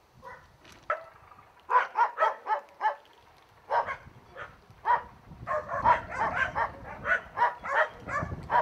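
Dogs barking in quick runs of short barks, a few at a time at first and then almost without pause over the second half.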